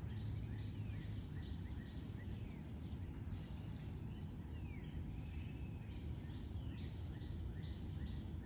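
Several wild birds chirping and calling in short notes and quick falling whistles, over a steady low rumble.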